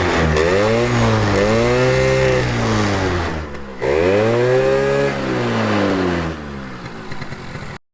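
Yamaha YZ250F dirt bike engine revved twice, the pitch climbing and falling in two long swells of about three seconds each, then settling lower near the end.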